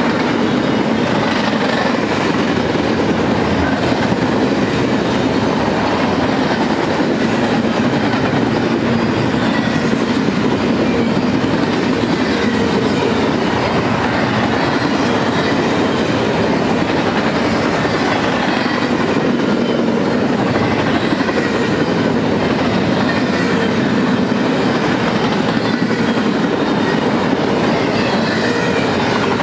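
Loaded double-stack intermodal freight train rolling past: a steady noise of well-car wheels on the rails with some clickety-clack.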